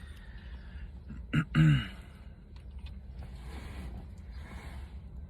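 Low steady rumble of a car engine idling, heard from inside the car. About a second and a half in there is a short murmured vocal sound, and near the end two soft breathy rustles.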